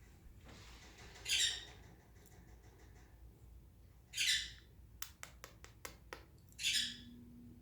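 Bird squawking: three short, harsh calls spaced about three seconds apart, with a quick run of sharp clicks between the second and third.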